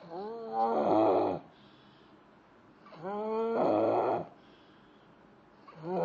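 A person snoring: three snores about three seconds apart, each lasting just over a second, starting with a pitch that slides down and then turning rougher, the third starting near the end.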